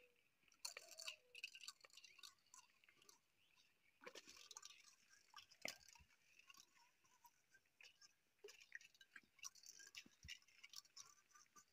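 Near silence, with faint scattered crackles and small clicks throughout.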